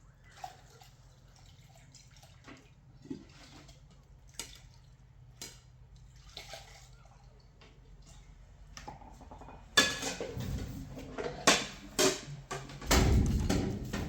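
Household handling sounds: light scattered clicks and knocks, then louder clattering about ten seconds in and a loud rush of noise near the end.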